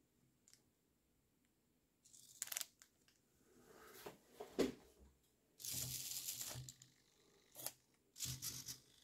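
SG90 micro servo motors of a small 3D-printed robot arm buzzing in several short bursts as the joints move, the longest about a second long a bit past halfway. The plastic-wrapped tissue pack held in the gripper rustles as it is moved and set down.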